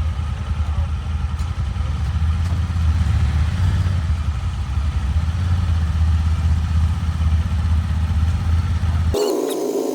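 A vehicle engine running steadily with a low rumble. It cuts off abruptly near the end and a different, higher-pitched steady hum takes over.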